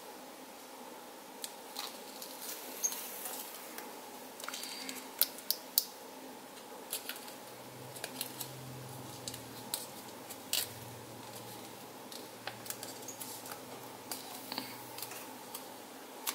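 A sheet of paper being folded and creased by hand: scattered crisp crinkles and clicks over a faint steady hum.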